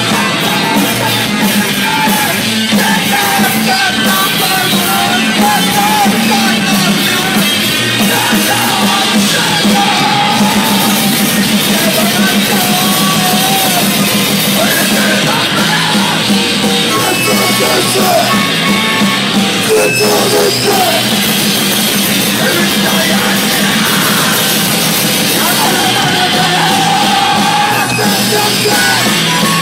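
Grind'n'roll band playing loud, steady heavy rock music with distorted guitar, drums and yelled vocals.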